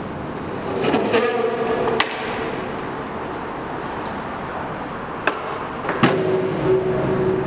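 Longboard urethane wheels rolling on a concrete floor, with a squeal of the wheels sliding about a second in and again for the last second and a half. Sharp clacks of the board striking the concrete about two, five and six seconds in, the one at six seconds the loudest.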